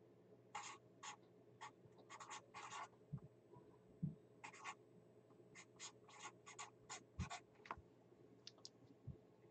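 Faint handwriting: a pen scratching out a name in short quick strokes, in runs with brief pauses between them. A few low knocks come in between, the loudest about four seconds in.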